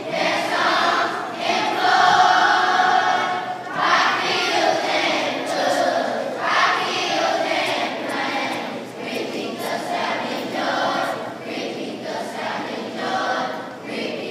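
A choir of fourth-grade children singing together in short phrases.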